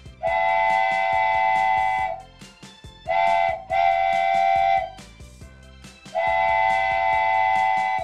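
Steam train whistle sounding several notes at once, blown four times: a long steady blast, a short one, then two longer ones.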